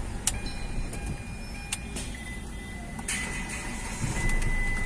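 Hyundai Xcent diesel car being switched off and started again, with a couple of sharp clicks and a thin steady high tone. The engine noise rises about three seconds in.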